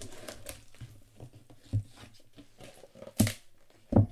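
A cardboard shipping box being opened by hand: its flaps and tape tearing and rustling, with a few sharp knocks of cardboard, the loudest about three seconds in and again near the end.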